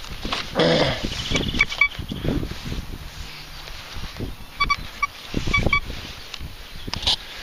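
Thracian metal detector giving several short high beeps as its spider coil is swept over a just-refilled hole. Around it, thuds and rustling of soil and grass as the plug is pressed back and trodden down, and a brief falling pitched sound about half a second in.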